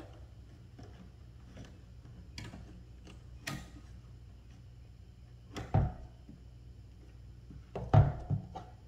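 A few short clicks and knocks of hand handling around the engine bay, the loudest two close together near the end, over a low steady hum.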